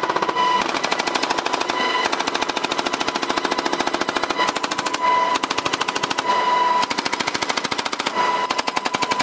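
Door-mounted M240B machine gun firing long bursts from a UH-60L Black Hawk helicopter: a rapid stream of shots broken by brief pauses, over a steady high whine.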